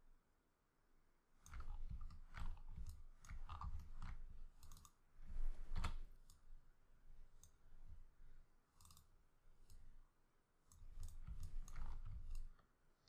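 Computer mouse clicking and being moved close to the microphone: irregular clusters of sharp clicks with soft low thumps, in two busy stretches with a quieter gap between.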